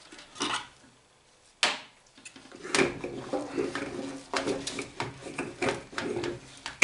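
A plastic MIG welding-wire spool being worked off its spring-loaded spindle: a few separate knocks, then a quick run of clicks, knocks and rattles of plastic and metal parts from about halfway in.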